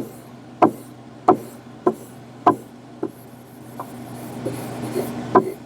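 Axe edge being stropped on a compound-loaded strop: a quick rubbing stroke about every half second or so, then a softer, steadier rubbing near the end.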